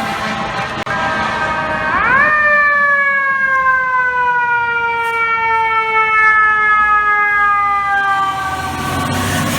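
Fire truck siren climbing sharply in pitch about two seconds in, then winding slowly down over several seconds, over street traffic noise.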